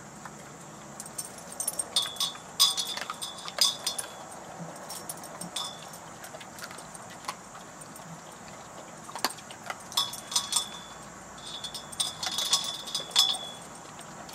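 Light metal jangling and clinking in two clusters, about two seconds in and again about ten seconds in, each strike leaving a brief high ringing.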